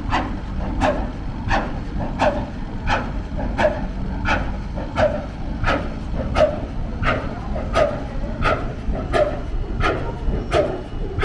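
1914 Snow engine, a large horizontal stationary gas engine, running at slow speed: a sharp, even beat about every 0.7 seconds over a steady low rumble.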